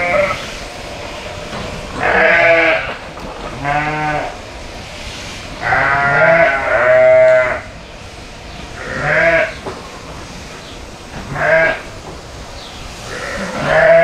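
Sheep bleating over and over, about eight separate calls roughly every one to two seconds, with two longer, louder bleats near the middle.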